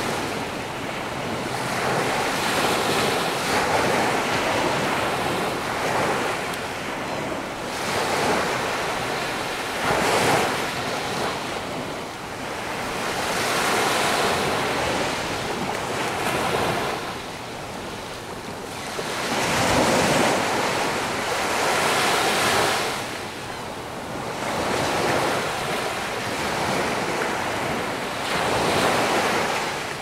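Small surf waves breaking and washing up a sandy beach, the rush swelling and fading every few seconds, with wind buffeting the microphone.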